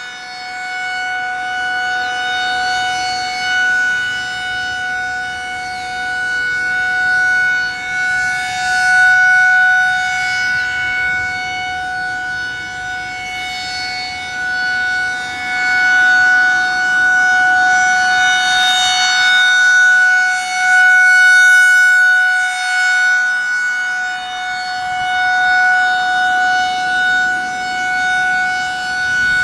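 Federal Signal 2001-SRN rotating outdoor warning siren sounding a steady single-pitch tone during a test. Its loudness swells and fades slowly as the rotating head turns.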